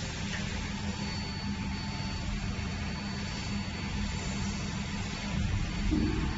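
Water cooling system of a jewelry laser welding machine running with a steady hum and a fan-like drone, with faint steady whines above it. A soft low thump comes near the end.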